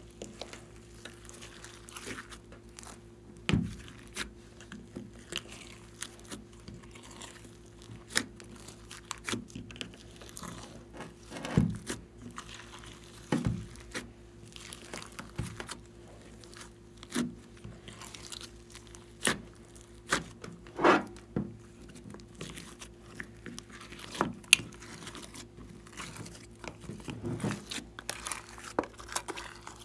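Hands kneading, pressing and stretching a large mass of glossy slime mixed with glitter and sequins, making irregular sticky pops, clicks and squelches.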